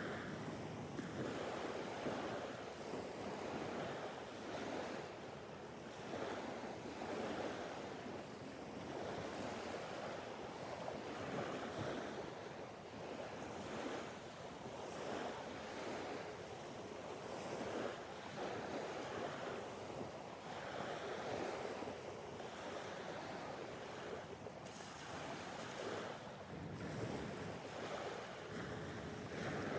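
Small waves breaking and washing up the beach, the surf swelling and easing every few seconds.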